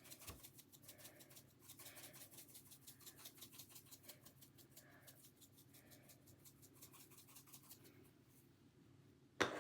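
Dried dill tips being sprinkled onto raw salmon: a faint, rapid scratchy rattle of many quick ticks, several a second. A single sharp click comes near the end.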